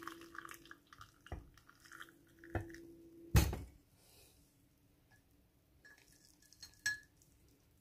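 Milky tea trickling and dripping through a mesh tea strainer into a glass mug, the pour tailing off in the first second. A few short knocks of the strainer and pot against the glass follow, the loudest about three and a half seconds in.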